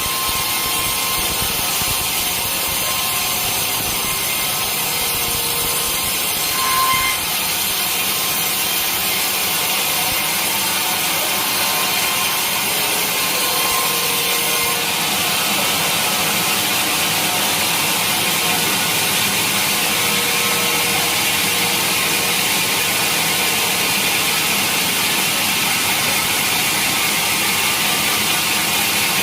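Sawmill saw cutting through a large teak log: a steady, loud, hissing cut. A short squeal comes about seven seconds in, and the cut grows brighter about halfway through.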